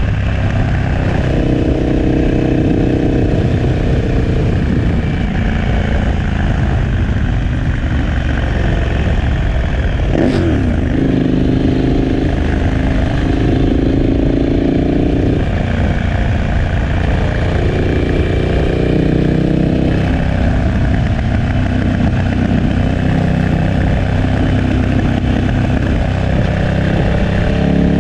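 KTM 1290 Super Adventure S's V-twin running through a Remus 8 exhaust while riding on the open road, its pitch rising and falling with throttle and gear changes, most clearly about a third of the way in and again past the middle.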